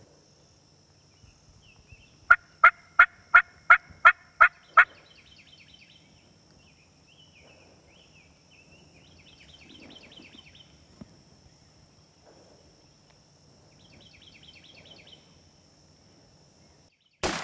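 Osceola wild turkeys calling: a run of eight loud yelps, about three a second, then gobbling three times, a fast rattling call each time. A shotgun shot goes off right at the end.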